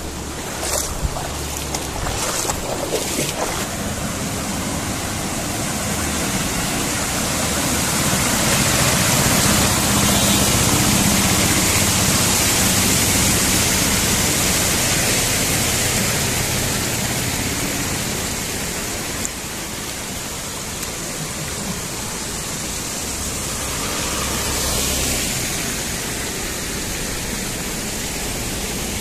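Muddy floodwater from an overflowing river rushing and churning across a road and swirling down into a drain opening. The rush swells louder for several seconds in the middle.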